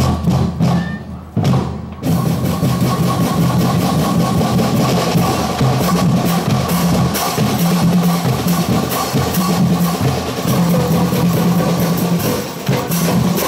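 Marching drum line of bass drums and other marching drums. A few single strokes sound, then from about two seconds in the whole line plays continuously in a steady driving rhythm.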